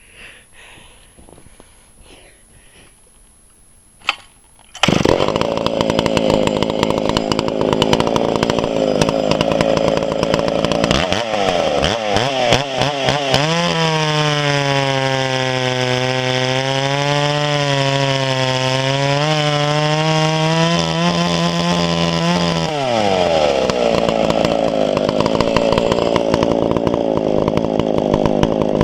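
Vintage McCulloch Super Pro 125 two-stroke chainsaw engine starting: after a sharp click it fires and catches suddenly about five seconds in, and runs steadily. About eleven seconds in it revs up and is held at high speed, wavering slightly, for about nine seconds, then drops back to a steady lower speed.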